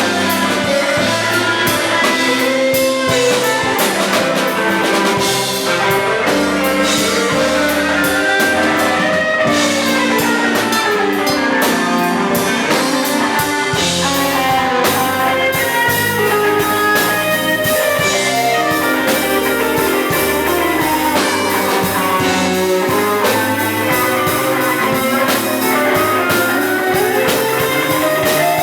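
Band playing an instrumental rock-jazz piece, with guitar carrying the melody over a drum kit.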